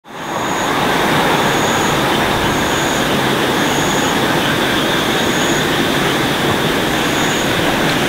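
Steady, loud rumble of a train running along the track, fading in over the first second. A faint, short, high chirp repeats about once a second.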